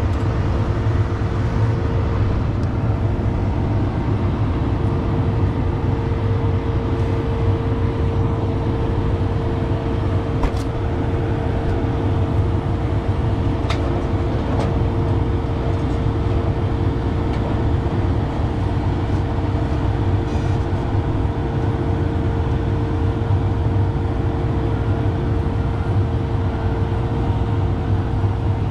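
John Deere combine's diesel engine running steadily: a constant low drone with a steady whine held on one pitch above it.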